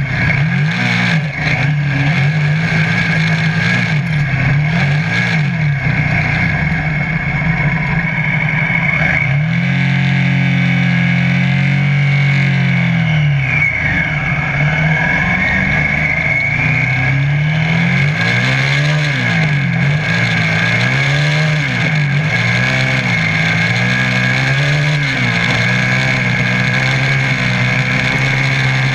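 Off-road buggy's engine running hard along a dirt road, heard from the driver's seat, its pitch rising and falling again and again as the driver accelerates and eases off. A steady high whine sits over the engine.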